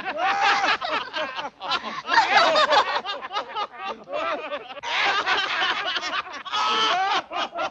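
Cartoon character voices snickering and chuckling, several overlapping in quick wavering bursts with no words.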